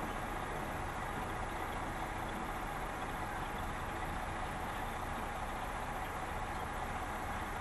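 A heavy engine idling out of sight: a steady, unchanging rumble with a constant low hum.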